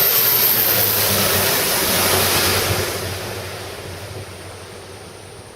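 Aircraft engine noise, a loud steady rush with a low hum underneath, fading away steadily over the last two or three seconds as the aircraft moves off.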